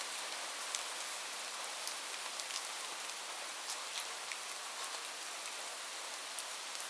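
Steady rain falling, an even hiss with scattered individual drops ticking sharply against a surface.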